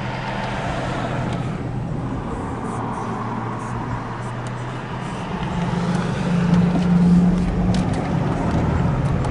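Car engine hum and road noise heard from inside a moving car, swelling louder for a couple of seconds past the middle.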